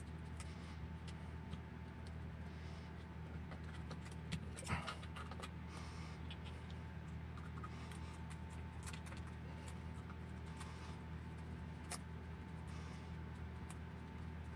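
Scattered faint clicks and light taps of a hex driver and small metal hardware being worked into an RC car chassis, with a brief cluster of louder clicks about four to five seconds in, over a steady low hum.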